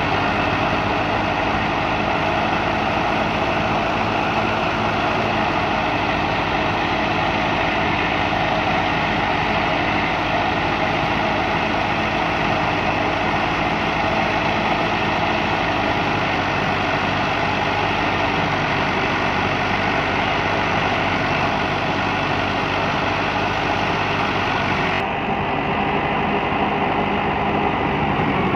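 Massey Ferguson 265 tractor's diesel engine running steadily under load while it drives a wheat thresher, mixed with the thresher's steady mechanical rush.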